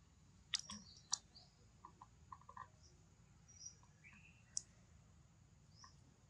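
Faint outdoor ambience with scattered short, high bird chirps and three sharp clicks, about half a second, a second, and four and a half seconds in.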